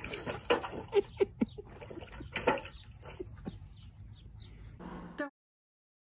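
A puppy splashing and pawing in a stainless-steel bowl of water, a string of sharp splashes and slaps over the first three seconds, with faint high chirps after them. The sound cuts off about five seconds in.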